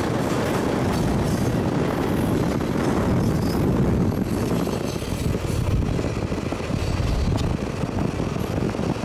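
Norfolk Southern freight train rolling along at speed, heard from a car pacing it: a steady low rumble of the cars on the rails mixed with the car's own road and wind noise.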